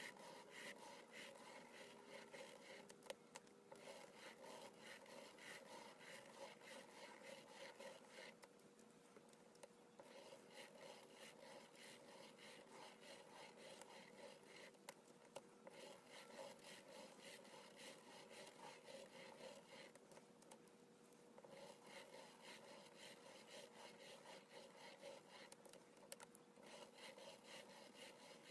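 Faint, fast rasping and ticking of a plastic Spirograph gear wheel rolling around inside its toothed ring as a pen is driven round it on paper, the teeth clicking in rapid succession along with the pen's scratch. It stops briefly a few times, for about a second each, then carries on.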